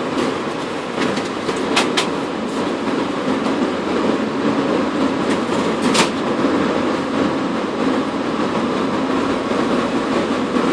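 Steady loud mechanical rumble with a few sharp clicks, two close together about two seconds in and one about six seconds in.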